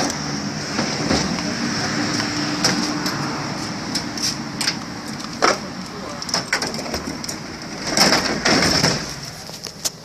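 Indistinct voices over steady background noise, with scattered clicks and knocks and a louder rustling stretch near the end, the kind of handling noise a phone makes while it is being moved about.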